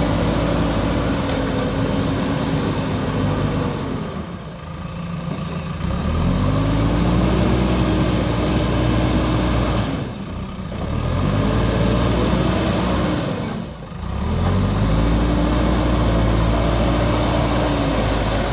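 Backhoe loader's diesel engine running hard at high revs. The revs drop off and climb back up three times.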